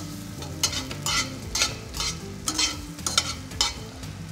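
Metal tongs tossing and scraping vegetables in a stainless steel sauté pan, over a low sizzle of frying. The tongs scrape the pan in quick strokes about twice a second.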